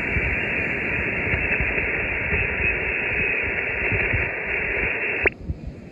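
Hiss of an Icom IC-705 receiving on the 20-metre band in upper sideband with no station coming through: steady band noise in the receiver's narrow voice passband. It cuts off suddenly about five seconds in.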